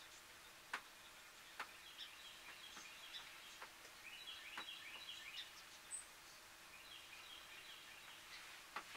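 Faint birds chirping in scattered short runs, with a few soft clicks over a quiet outdoor background.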